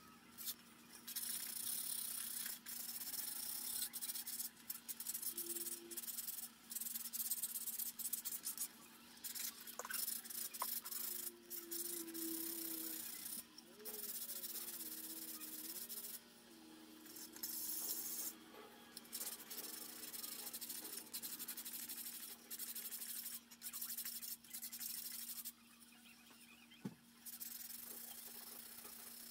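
Sandpaper rubbed by hand over a small wooden dish, a dry rasping hiss in back-and-forth strokes with short pauses between, smoothing the wood.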